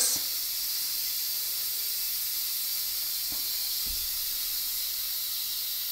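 Steady, faint high hiss with a couple of faint knocks midway.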